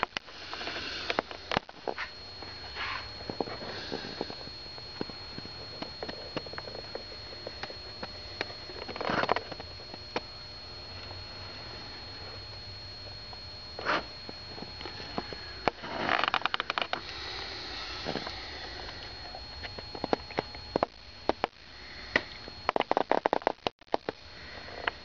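A person breathing and sniffing close to the microphone, with scattered handling clicks and a faint steady high whine.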